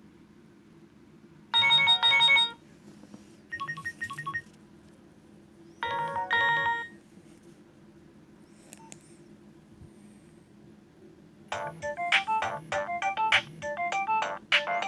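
Nokia 2610 mobile phone playing its polyphonic ringtones and alert tones: three short tone phrases of about a second each, with pauses between. About eleven seconds in, a faster ringtone melody starts.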